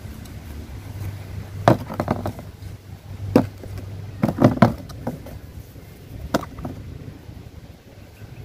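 Stones knocking against the bottom of a stainless steel basin as they are set down one by one over its drilled drainage holes: a string of about seven sharp knocks, some in quick pairs.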